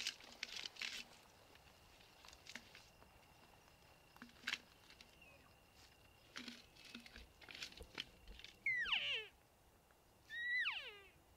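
Elk calling: two high calls, each under a second and sliding steeply down in pitch, about a second and a half apart near the end. Faint clicks and rustles come before them.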